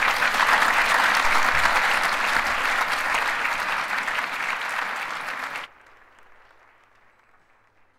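Audience applauding, loud and dense, cut off abruptly about five and a half seconds in, leaving only a faint background.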